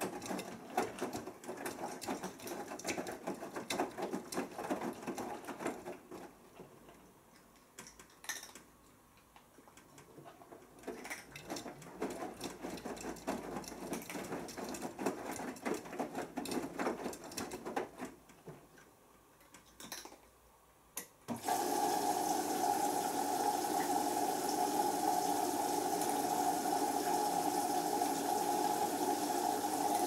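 Beko WMB81445L washing machine's drum turning wet laundry, tumbling noise that comes and goes with pauses between turns. About two-thirds of the way through, the water inlet opens with a sudden steady rush of water: the top-up fill of the synthetics 40 °C cycle.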